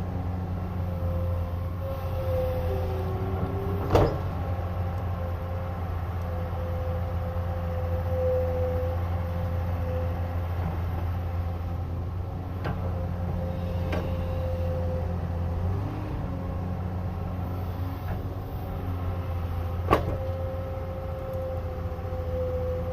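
Excavator's diesel engine running steadily with a wavering whine over it, and two sharp clanks, about four seconds in and near the end, with fainter knocks between.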